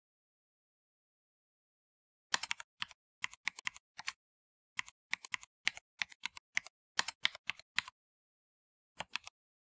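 Typing on a computer keyboard: a quick run of key clicks starting a couple of seconds in and lasting about five and a half seconds, then a pause and a few more keystrokes near the end.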